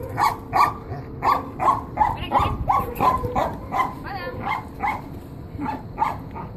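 A dog barking in play, a rapid run of short barks about three a second, with a brief wavering yelp about four seconds in.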